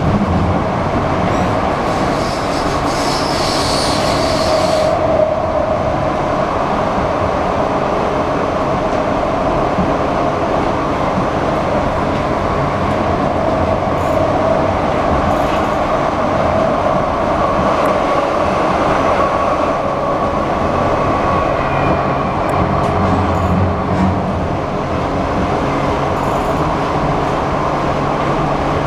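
1977 Siemens-DüWag U2 light-rail car running at speed, heard from inside the car: a steady rumble of wheels on rail with a couple of held humming tones. About three seconds in, a high hiss rises over it for about two seconds, and a few faint clicks come later.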